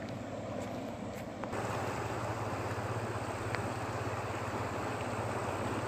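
Amu Darya river in high water, rushing and churning against the bank as a steady wash of noise over a low hum; it gets louder about a second and a half in.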